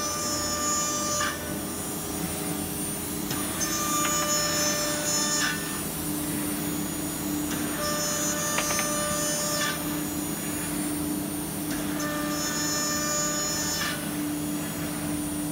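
Holztek PRO-R1V9F nesting CNC router's spindle cutting a blue laminated wood panel. A steady hum runs under a higher whine that comes in for about two seconds roughly every four seconds.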